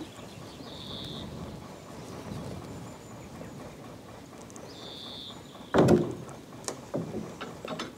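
A canal lift bridge's winding gear being cranked with a lock windlass, giving a steady low mechanical rumble, then one loud clunk about six seconds in followed by a few lighter clicks.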